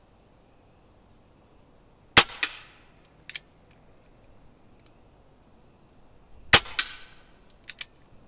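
Two shots from a Crosman Vigilante CO2 air pistol fired double action, about four seconds apart, each a sharp crack followed a moment later by a quieter knock of the pellet striking downrange, with a few light clicks after each shot. The owner suspects the pistol was low on CO2.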